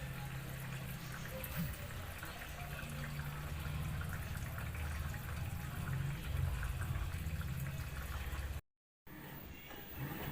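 LG Smart Inverter top-load washing machine filling its tub, water pouring in from the inlet at the top with a steady rush over a low hum. The sound cuts off abruptly near the end and comes back quieter.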